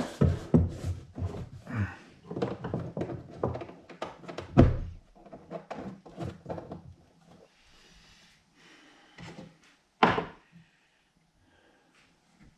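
Drill press parts being handled during assembly: a run of clunks and knocks, one heavy thud a little over four seconds in, then a few single knocks near the end.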